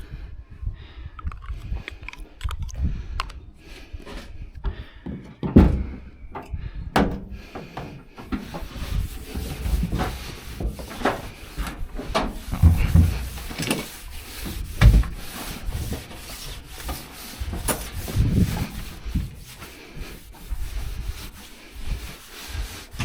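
Cloth wiping and rubbing over panels during degreasing with silicone remover, with irregular knocks and handling thumps.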